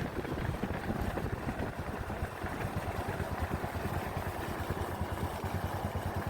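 Motorcycle engine running steadily, with a fast, even low beat from the exhaust.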